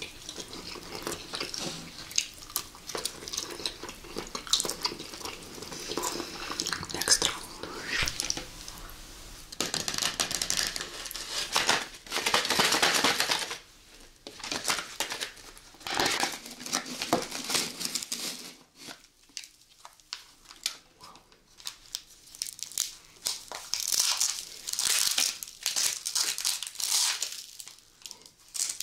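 Close-miked eating and food-handling sounds in a string of short bursts: packaging crinkling and tearing, potato chips crunching, and soft jelly candy being handled. The densest, loudest stretch comes in the middle.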